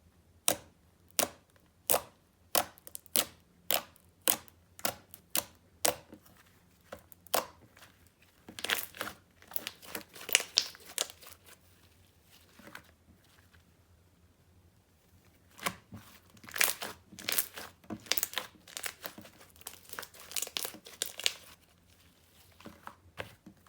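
Homemade shower-gel slime being pressed and pulled by hand. It gives a run of sharp sticky pops, a little under two a second, then bursts of crackling, tearing squelches.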